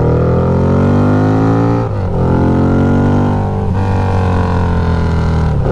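Harley-Davidson V-Rod's liquid-cooled Revolution V-twin running through Ground Pounder drag pipes under hard acceleration. The engine note climbs, breaks for an upshift about two seconds in, climbs again, and after a second shift midway runs on at a more even pitch.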